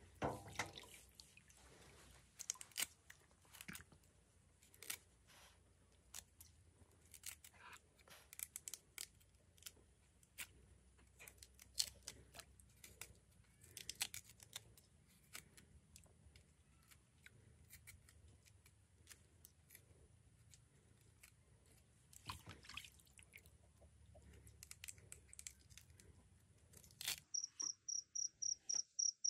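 Faint, irregular clicks and crunches, some single and some in short clusters. About four seconds before the end, an insect starts a fast, even, high-pitched chirping.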